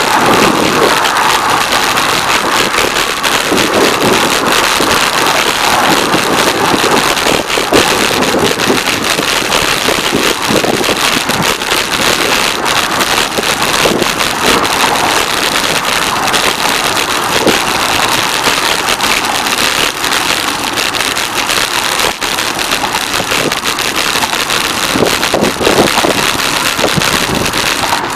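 Steady rush of car traffic on an adjacent highway, mixed with wind on the microphone of a moving bicycle.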